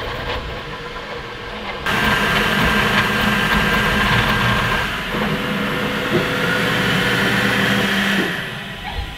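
Elegoo Centauri Carbon CoreXY 3D printer running a print: a steady fan whir with the whine of the stepper motors, changing in pitch as the print head moves. It gets abruptly louder about two seconds in and eases off near the end.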